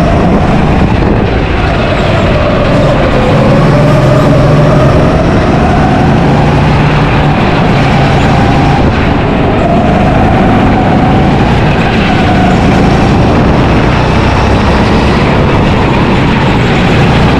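Go-kart engine heard from on board at full race pace, its pitch climbing and dipping several times as the kart speeds up on the straights and slows for corners.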